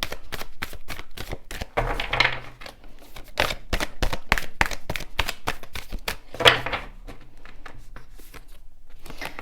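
A deck of oracle cards being shuffled by hand: a fast, irregular run of card flicks and taps.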